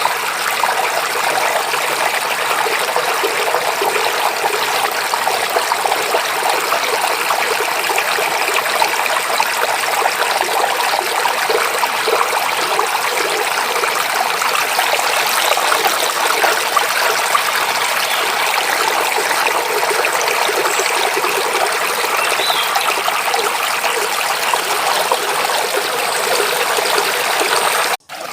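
Forest stream running and babbling steadily, a continuous rush of water; the sound cuts out for an instant near the end.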